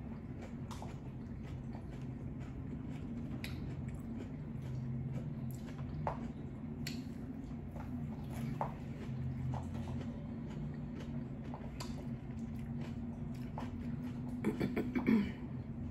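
Close-up chewing and biting into crunchy hard-shell tacos, with scattered crisp crunches and mouth sounds over a steady low hum. A short voiced murmur comes near the end.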